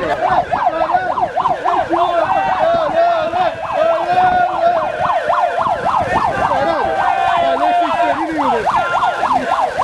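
Siren sounding in a fast rising-and-falling yelp, about four or five sweeps a second, with a steadier wail underneath, over a crowd cheering.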